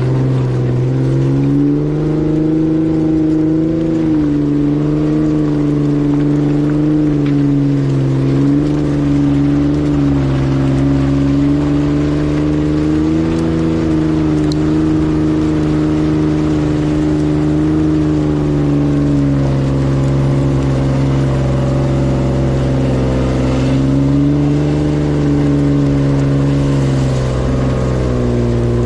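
Jeep engine running hard under heavy load as it tows a stuck delivery van up a steep, muddy hill, its revs rising and falling. Near the end the revs dip sharply and then climb again.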